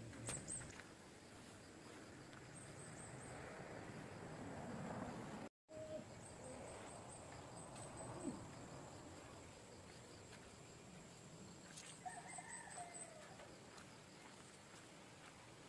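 Low, even background noise with a faint bird-like call about twelve seconds in, sliding down in pitch toward its end. The sound drops out completely for a moment about five and a half seconds in.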